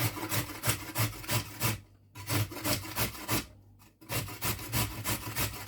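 A carrot being shredded on the coarse side of a grater: quick rasping strokes, about three or four a second, with two short pauses.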